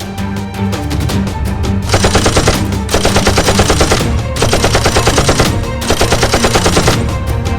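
Four bursts of rapid automatic-gunfire sound effect, starting about two seconds in, over background music.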